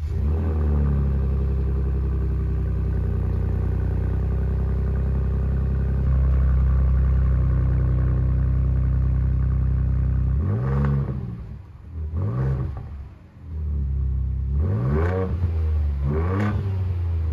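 Ford Ranger Raptor's twin-turbo V6 heard at its dual tailpipes: it comes in with a short rise in revs and runs steadily, then is revved in four quick blips over the last seven seconds, the revs rising and falling each time.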